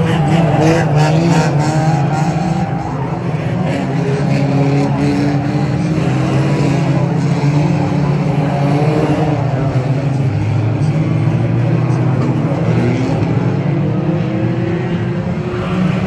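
Several banger racing cars' engines revving as a pack of cars races around an oval track. The engine pitch rises and falls as drivers accelerate and lift, with a steady low drone underneath.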